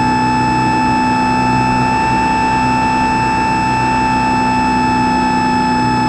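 Motor and propeller of an X-8 flying-wing RC plane in flight, a steady high whine heard from the onboard camera, rising slightly in pitch through the middle and settling back.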